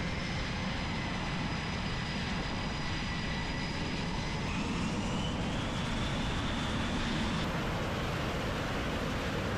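F/A-18 Super Hornet jet engines running at taxi power: a steady jet rumble and hiss. A thin whine climbs in pitch about halfway through.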